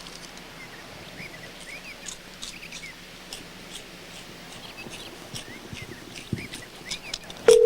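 Faint scattered chirps and ticks over a low background hiss. Near the end a loud, steady telephone dial tone comes on abruptly through the studio phone line.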